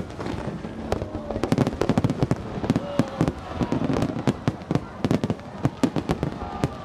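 Aerial fireworks going off in rapid, irregular succession: a dense run of sharp bangs and crackles, several a second, with no break.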